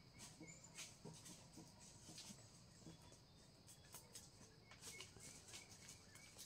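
Near silence: quiet outdoor ambience with faint high chirps repeating about twice a second, strongest near the end, and a few soft clicks.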